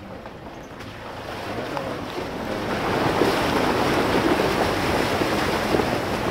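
Rushing, splashing water noise as an off-road vehicle fords a shallow stream, building over the first three seconds and then staying loud.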